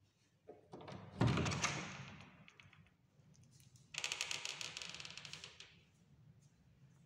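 Interior door thumping about a second in, the loudest sound, then a fast rattle of clicks lasting under two seconds.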